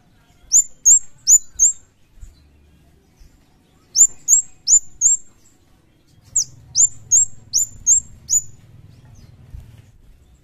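Scarlet-headed flowerpecker (kemade/cigen) calling: three quick runs of high, sharp chip notes, four, four and then six, each note dropping quickly in pitch.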